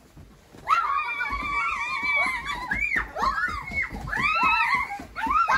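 Children squealing in high-pitched cries: one long held squeal starting under a second in, then several shorter squeals that rise and fall.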